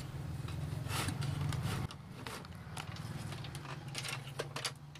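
Scattered light clicks and scrapes of a TV circuit board and its wires being handled and seated in a plastic cabinet tray, over a steady low hum that drops a little about two seconds in.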